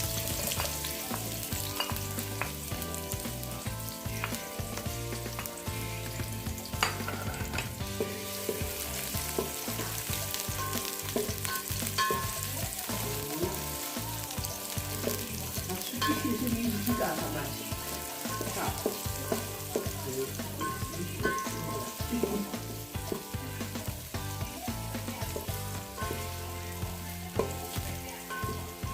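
Chopped onions sizzling as they fry in hot oil in a sufuria, with occasional clicks and scrapes of a spoon stirring them.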